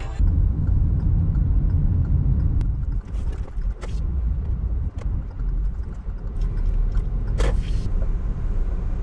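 Steady low rumble of a car's engine and tyres, heard from inside the cabin as the car rolls slowly along. A few faint clicks are heard, and a brief sharper noise comes about seven and a half seconds in.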